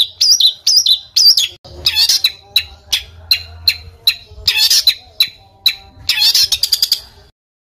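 Songbird singing a rapid series of harsh, sharp chirps and short rattling trills, the kind of rough 'tembakan' song used as masteran tutor song for competition birds. The song stops abruptly shortly before the end.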